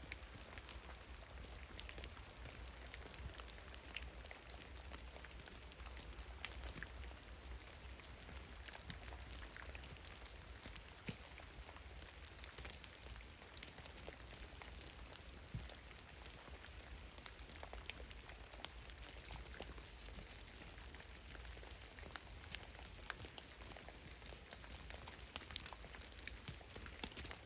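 Meltwater drops falling from heavy melting snow in a forest, many irregular pattering drips over a faint steady hiss, with a low rumble underneath.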